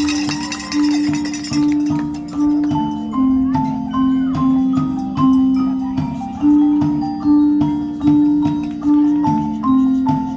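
Music: mallet percussion, marimba-like, playing a repeating pattern of struck notes over sustained low notes, with a sharp accent about every 0.8 s.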